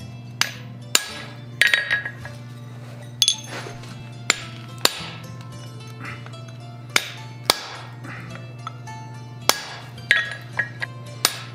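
Hand hammer striking a bird's eye punch into red-hot steel on an anvil to cut the eye of a forged vulture head. The blows come irregularly, singly and in quick runs of two to four, each with a short metallic ring.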